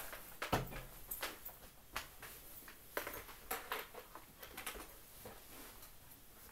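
Handling noise of a person settling in with a button accordion: scattered knocks, clicks and rustles, the loudest a thump about half a second in.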